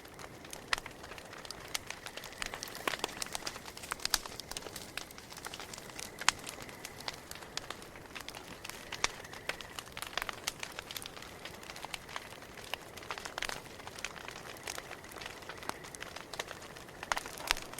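Campfire crackling: irregular sharp pops and snaps over a low steady hiss.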